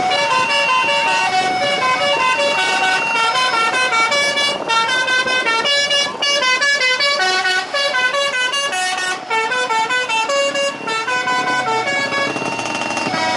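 A fast melody of short stepped notes in a reedy, horn-like tone, running without a break with a few brief dips in level.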